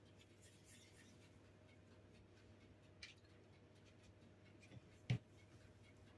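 Faint rubbing and scraping of hands rolling soft cookie dough into a ball and setting it on a parchment-lined baking tray, with a light tap about three seconds in and one sharper knock about five seconds in.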